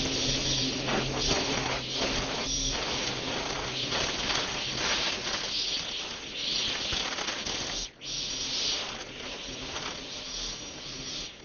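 String trimmer running and cutting long grass, a steady whirring hiss of the spinning line. It drops out briefly about eight seconds in and again near the end, as the throttle is let off.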